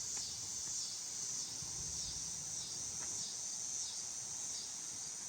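Insects singing outdoors: a steady high-pitched chorus that pulses about once every two-thirds of a second, with a low rustle underneath.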